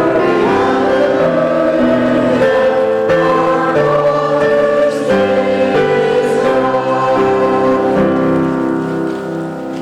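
A church congregation singing a hymn with instrumental accompaniment, settling into a long held final chord near the end.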